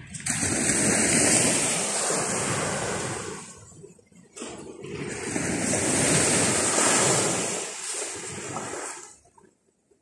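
Baltic Sea surf washing up a sandy beach: two long swells of wave noise, each rising and then falling away, the second fading out near the end.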